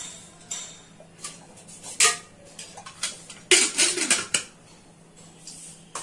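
Metal cookware clinking and clattering: a few separate knocks, the loudest about two seconds in, then a louder run of clattering between three and a half and four and a half seconds in.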